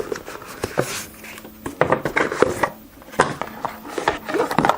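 Rummaging by hand in a box of small items and their packaging: a run of irregular light clicks, knocks and rustles as things are moved and lifted out.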